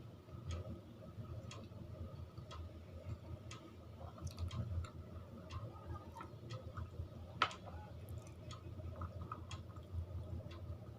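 A wall clock ticking, about one tick a second, over a low steady hum, with scattered irregular clicks and one louder click about seven and a half seconds in.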